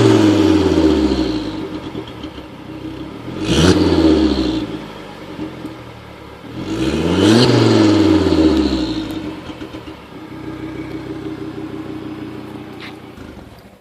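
2004 Volvo S60 R's turbocharged 2.5-litre inline five, breathing through a catless OBX downpipe with the stock cat-back exhaust, being revved: the revs fall back from a previous rev, there is a quick blip about three and a half seconds in, a longer rev rising and falling around seven seconds in, then it idles steadily until it cuts off near the end.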